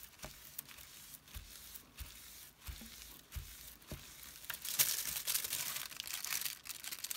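Thin decorative foil sheet crinkling and rustling as it is handled and peeled off a tacky die-cut piece. There are light, scattered crackles at first, then a denser crackling rustle from about halfway through.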